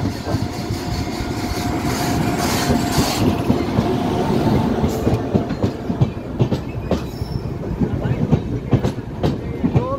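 An Indian Railways WAP-7 electric locomotive and its coaches running in along the platform. The rumble of the passing train carries a steady whine over the first few seconds, then gives way to clicks and clacks of the coach wheels over the rail joints.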